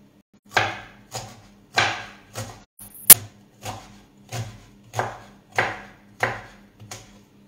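Kitchen knife slicing raw artichoke very thin on a wooden cutting board: a steady run of short, crisp cuts, a little under two a second, each ending in a knock on the board. About three seconds in, one sharp click is the loudest sound.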